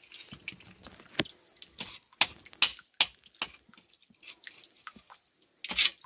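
Water dripping from the tip of a boulder into a small shallow pool: irregular drops and splashes, some louder than others, the loudest about halfway and again near the end.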